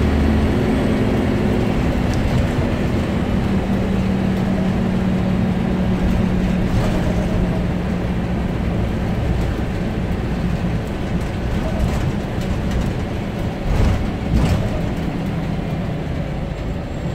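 Scania OmniCity single-deck bus heard from inside the saloon while under way: steady engine hum and road noise, with a deep low note that drops away about half a second in. Two sharp knocks come close together near the end.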